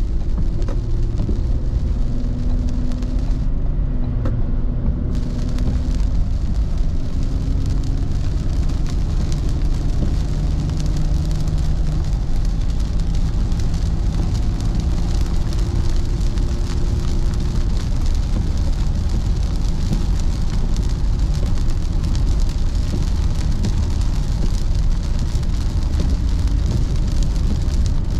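A car driving on a wet highway in heavy rain, heard from inside: a steady low road rumble with tyres hissing through water, the hiss growing louder after about five seconds, and a faint engine hum in the first half.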